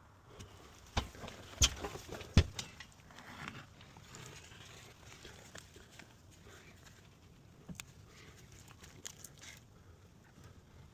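Spatula spreading thick liquid flashing over wall sheathing: a few sharp knocks in the first couple of seconds, then soft, uneven scraping as the paste is smoothed on.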